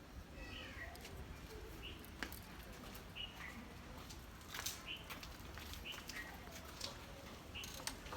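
A bird chirping over and over, short calls about once a second, with a few faint sharp clicks in between.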